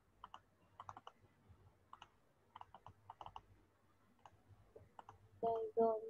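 Scattered clicks of typing on a computer keyboard, a few keystrokes at a time with short pauses between, heard faintly over a video call. A voice starts just before the end.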